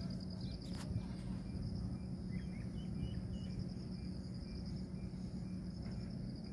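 Background insects trilling steadily, a high, rapidly pulsing buzz, over a steady low hum.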